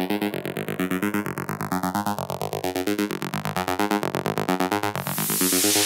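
Electronic dance music soundtrack: a rapidly pulsing synthesizer chord whose tone slowly sweeps darker and then brighter again, with a rushing hiss swelling up near the end.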